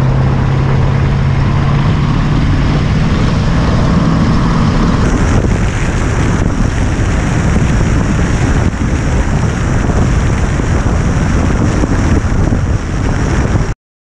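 Heavy wind buffeting on a microphone mounted outside a moving 1973 Dodge Charger, with the car's engine droning underneath for the first few seconds. The sound cuts off abruptly near the end.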